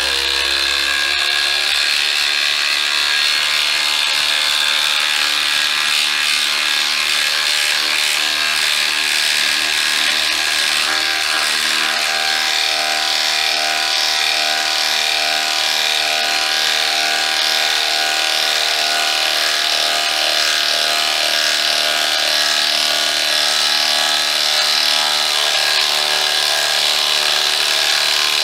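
DeWalt DCF850 Atomic subcompact impact driver hammering continuously as it drives a 12-inch lag bolt into wood. It runs steadily under heavy load for almost half a minute and stops suddenly near the end as the bolt is sunk.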